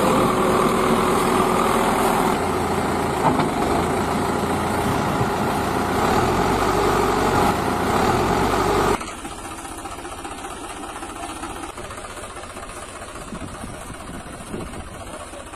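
Engine running steadily. About nine seconds in the sound cuts off abruptly and is replaced by a much quieter engine hum.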